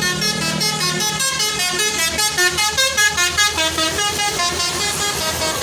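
Bus 'telolet' (basuri) multi-tone horn playing a fast tune of short notes that step up and down in pitch.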